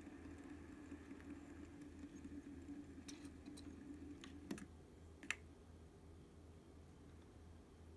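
Near silence: a faint steady room hum with a few light clicks and taps about three to five seconds in, the sharpest one about five seconds in.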